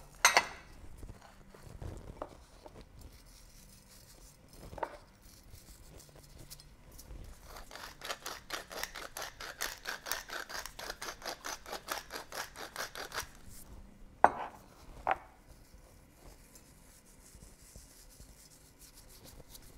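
Wooden pepper mill grinding peppercorns: a rapid, even run of crunching clicks lasting about five seconds, followed by two sharp knocks.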